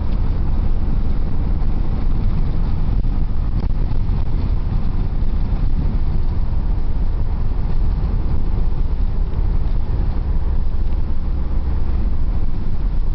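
Steady engine and road noise heard inside a moving car, a low rumble that holds even throughout.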